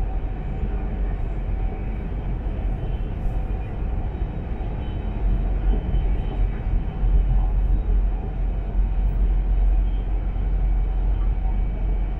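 Steady rumble of a high-speed train running at speed, heard from inside the passenger carriage: a deep, even drone that grows a little louder about seven seconds in.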